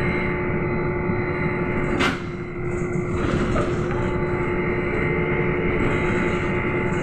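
Trolza-5265.00 Megapolis trolleybus driving along, heard from inside the cabin: a steady electric drive whine and hum over road rumble. One sharp clack about two seconds in.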